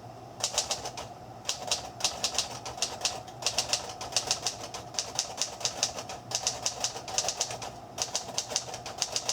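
1938 Royal Aristocrat manual typewriter being typed on: quick runs of sharp key and typebar strikes, several a second, with short pauses between runs.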